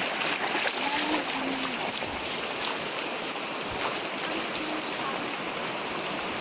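Shallow rocky river running over rapids: a steady rushing of water.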